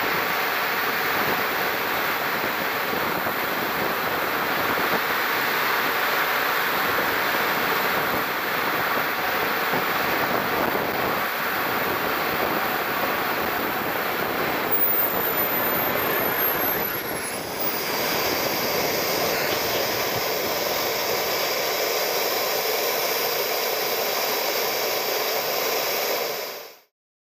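A model jet turbine (100N class) running in a BVM F9F-6 Cougar RC jet, heard from a camera on the airframe as a steady rushing whine through landing approach and rollout. About halfway through, a high whine slides down in pitch as the turbine spools down. The sound fades out abruptly near the end.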